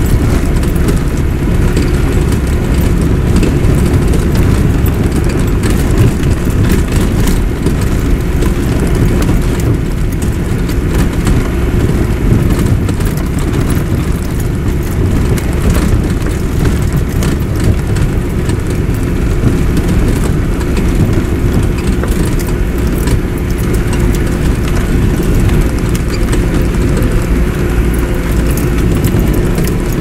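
Car driving across rough grassland, heard from inside the cabin: a steady low engine and tyre rumble with a constant hum and scattered small knocks and rattles.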